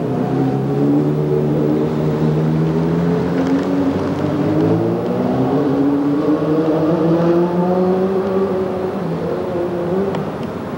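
An engine running with a steady hum whose pitch rises slowly over several seconds, then drops near the end.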